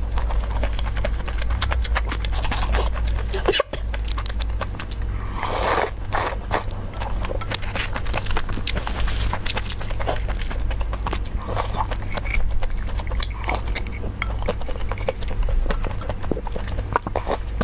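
Close-miked eating of noodle soup: chewing and slurping with many small wet mouth clicks and a few longer slurps, over a steady low hum.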